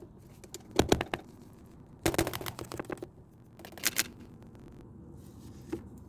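Plastic crackling and clicking as hands handle plastic seedling pots, containers and bags: three short bursts of rapid crackle, about a second in, around two to three seconds and near four seconds, then a single click near the end.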